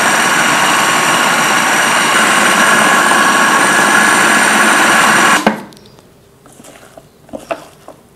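Electric food processor running, chopping raw mango, tomatoes, green chillies, coriander and mint for chutney: a steady motor whine that cuts off suddenly about five and a half seconds in. A few faint knocks follow as a spatula scrapes the bowl.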